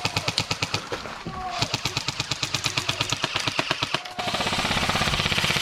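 Airsoft guns firing long full-auto bursts: rapid, evenly spaced mechanical cracks. About four seconds in, the fire turns denser and steadier, like a faster-firing gun.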